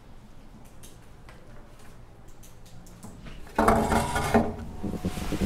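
A metal-framed school chair pulled out and dragged across the floor, a sudden loud scraping clatter about three and a half seconds in, with more scraping near the end.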